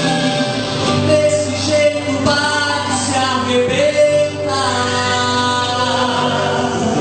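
Gospel song playing: a full musical accompaniment with singing voices.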